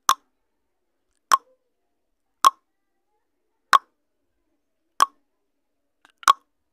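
Countdown timer sound effect: a short, sharp click repeated evenly about every second and a quarter, six times.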